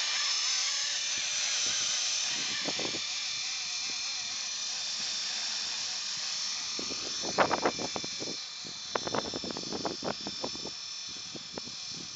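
Radio-controlled model helicopter flying, its motor and rotors making a steady high-pitched whine that wavers in pitch at first and slowly fades as the helicopter moves away.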